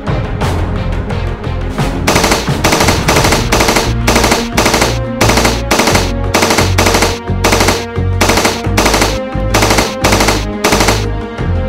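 Bursts of machine-gun fire, repeating in quick, even succession from about two seconds in, over dramatic background music.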